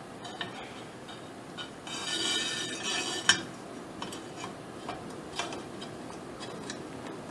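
UTG handguard being slid over an AR-15 barrel: a scraping slide of about a second and a half that ends in a sharp click, with light clicks and taps of parts handled before and after.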